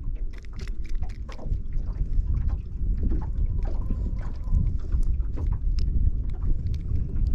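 Wind rumbling and buffeting on the microphone, with many small sharp clicks and knocks scattered through it and a faint thin tone for a second or so midway.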